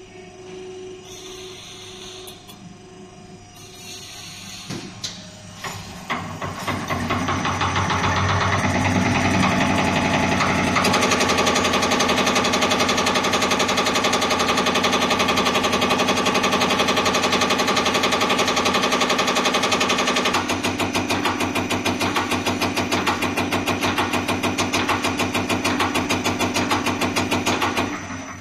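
Diesel injector test bench's drive motor and cambox spinning up and then running steadily with a mechanical whine. About two-thirds through, the sound changes to a rapid, even pulsing, then stops at the end.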